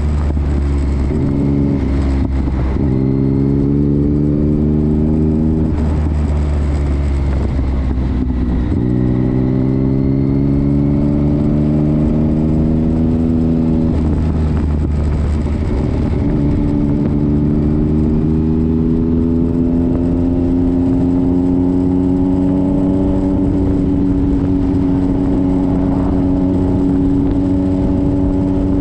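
Motorcycle engine heard from on the bike, pulling up through the gears. Its note rises slowly in each gear and drops at each shift, a few times in the first half, then climbs gently into a steady cruise, with a low road and wind rumble underneath.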